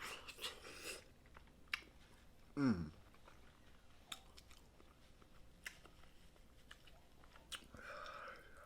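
Close-up wet chewing and lip-smacking of someone eating snow crab in butter sauce, with scattered sharp clicks and a brief falling "mm" of the voice about three seconds in.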